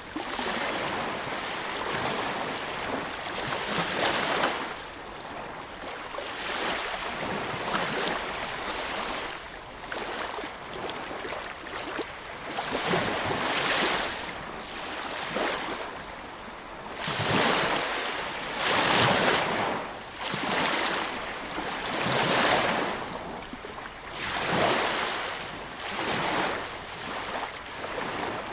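Sea waves breaking and washing on a shore, a steady rushing surf that swells and falls every couple of seconds, with the biggest breakers in the middle stretch.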